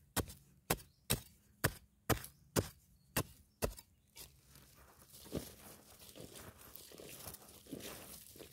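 A digging tool striking hard, dry soil about twice a second, eight or so sharp blows, followed by softer scraping and scooping of loose dirt by hand while digging out wild yam tubers.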